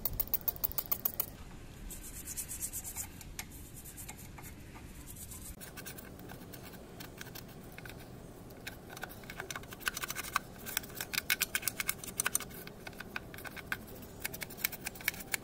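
Scrubbing brush working over a scooter's soapy, greasy engine cooling-fan cover and underbody: quick scratchy strokes in bursts, sparse in the middle and busiest from about nine seconds in.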